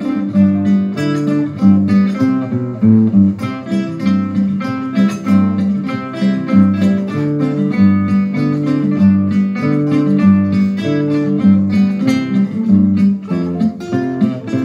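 An ensemble of acoustic guitars playing a tune together, a continuous run of plucked notes.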